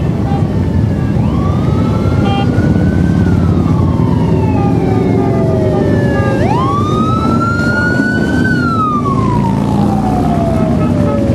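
Fire engine's mechanical siren winding up quickly and then coasting slowly down, twice, over the low rumble of motorcycles riding past. A short horn toot sounds about two seconds in.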